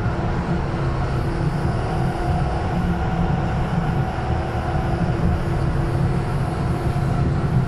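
Berlin S-Bahn class 485 electric multiple unit running at steady speed, heard from inside the passenger car: an even, loud rumble of the wheels and running gear with a steady whine over it.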